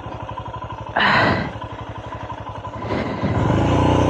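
Royal Enfield Himalayan 411's single-cylinder engine running at low revs with an even pulse, a brief loud noise about a second in, then the engine revving up and getting louder near the end as the bike is ridden over a fallen tree.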